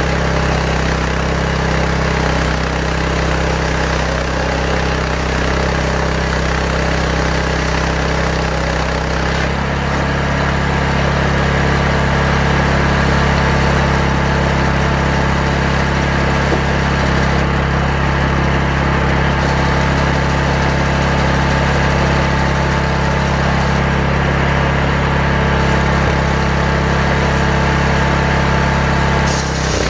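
Table circular saw running steadily while ripping timber. About ten seconds in the pitch shifts, the sound gets a little louder and a steady higher whine comes in, lasting until shortly before the end.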